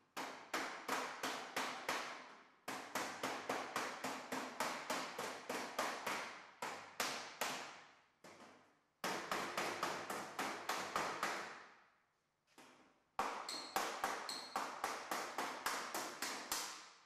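Body hammer striking a car door skin's steel hem against a dolly, finishing the corners and body lines: sharp separate blows at about four or five a second, each ringing briefly, in four runs with short pauses between.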